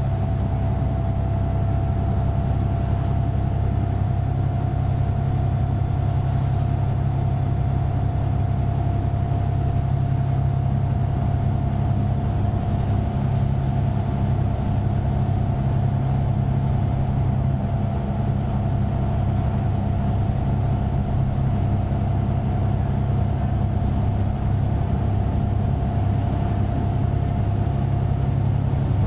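Van Hool new AG300 articulated bus with its DAF PR228S diesel engine, heard from inside the passenger cabin: a steady low engine rumble with a thin, even whine over it, holding level throughout.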